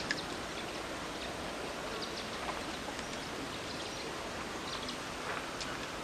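Steady, even outdoor background noise beside open water, with a few faint clicks scattered through it.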